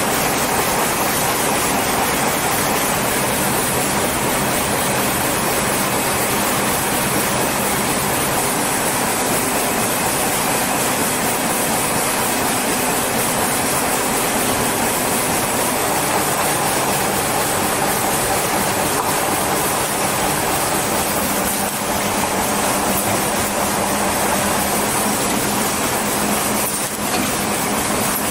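Paper cup production line machinery running at speed: a steady, dense mechanical noise with a low hum underneath.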